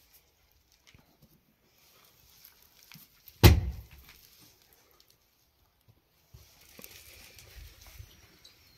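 A single loud thump about three and a half seconds in: a round of flatbread dough slapped against the inside wall of a clay tandoor oven. Faint rustling follows near the end.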